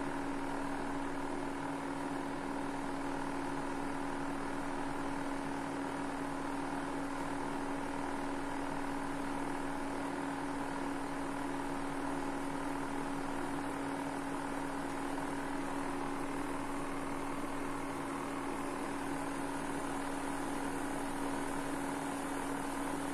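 Prestige PIC 3.0 V2 induction cooktop running at 2000 W with a vessel on it: a steady whir from its cooling fan with a constant low hum.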